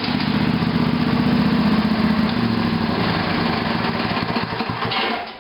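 Craftsman lawn tractor's Briggs & Stratton 18.5 hp Intek engine running steadily, dying down near the end.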